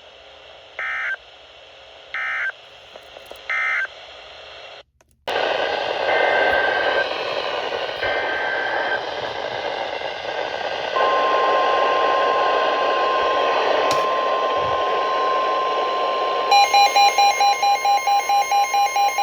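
Emergency Alert System broadcast tones on NOAA Weather Radio. First come three short screeching data bursts, the end-of-message code of the finished alert. After a brief dropout, static and two longer warbling data bursts of the next alert's header follow. Then the steady 1050 Hz weather radio warning tone begins, and near the end an electronic alarm starts beeping rapidly alongside it.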